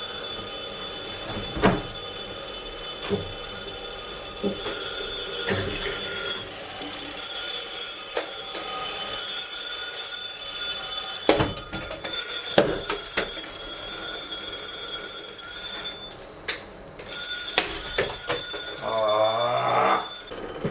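Many alarm clocks going off at once, a dense layer of high steady electronic tones, with a few sharp knocks scattered through.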